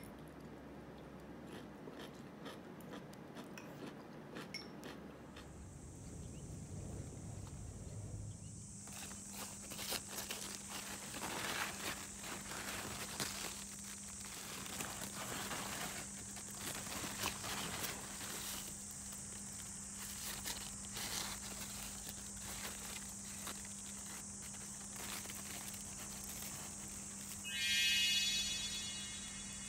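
Insects shrilling steadily at a high pitch, with the rustle of large squash leaves and vines being pushed aside by hand. Near the end a short, bright chime sound effect rings out, the loudest sound.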